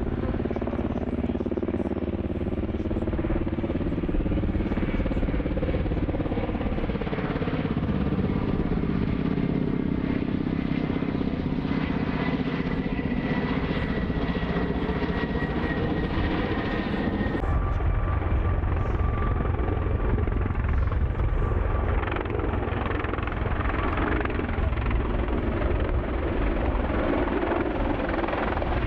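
Military helicopters in flight: the steady rotor beat and turbine whine of a Ka-52 attack helicopter passing overhead. About 17 seconds in, the sound changes abruptly to heavier rotor noise with a lower steady whine, another helicopter pass that ends with an Mi-26 heavy transport helicopter flying close.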